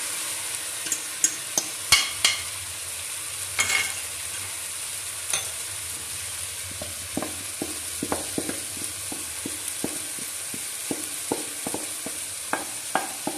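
Marinated chicken pieces going into a hot metal pan of frying onion-tomato masala, sizzling steadily, with a few sharp knocks in the first seconds as the chicken is tipped in. From about halfway, a wooden spatula stirs the mix, scraping and tapping the pan in quick irregular knocks.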